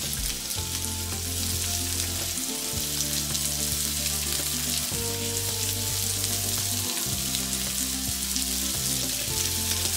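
Shrimp sizzling steadily in hot olive oil in a wok. Background music of long held notes plays underneath.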